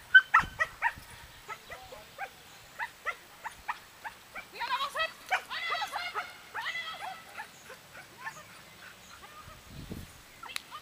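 A dog barking and yipping in short, repeated, high calls, loudest right at the start, with a quicker run of yips about halfway through.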